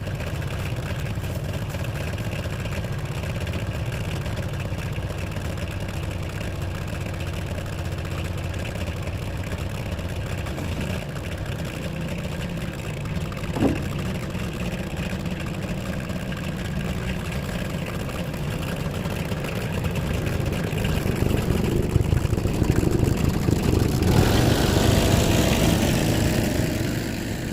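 Diesel farm tractor engine running steadily just after a cold start, its frozen coolant and engine thawed with a wood fire. There is a brief squeak about halfway through, and the engine gets louder and harsher over the last several seconds.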